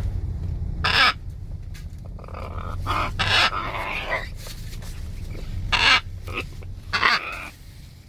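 Parrot squawking: a string of short, harsh calls every second or two over a low steady rumble.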